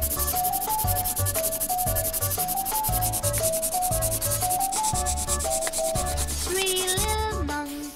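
Colouring pen scribbling back and forth on paper as an area is filled in with colour: a steady, rapid scratchy rubbing. A simple children's tune with a plain stepwise melody and a soft beat plays under it, and a higher melodic line joins near the end.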